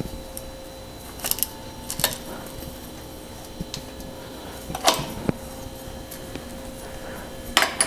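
A handful of separate light metallic clicks and clinks as a loosened bicycle pedal is unthreaded by hand from its crank arm and handled. The sharpest come about five seconds in and near the end.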